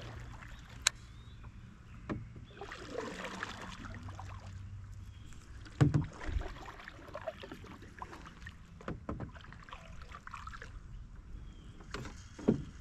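Small fishing boat on the water: scattered knocks and bumps against the hull with light water movement, and one louder thump about six seconds in. A faint steady low hum runs under the first half.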